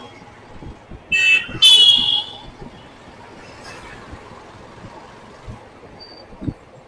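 A vehicle horn honks twice in quick succession, a short toot and then a longer, louder one, over steady road traffic noise.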